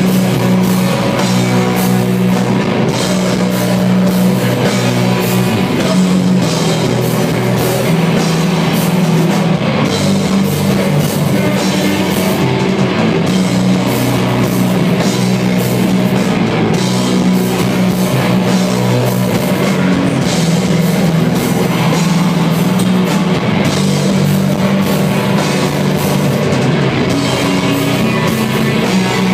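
A heavy rock band playing live: distorted electric guitars, drum kit and keyboard, loud and dense, with sustained low guitar chords under steady drum hits.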